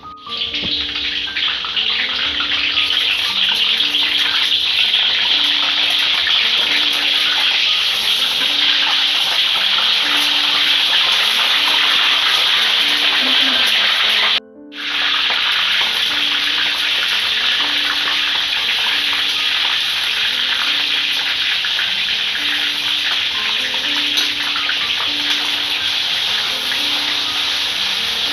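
Hot oil in a wok sizzling loudly as lemongrass, leaves and ground spice paste fry in it; the sizzle starts suddenly as the ingredients go in. It cuts out for a moment about halfway through, then carries on.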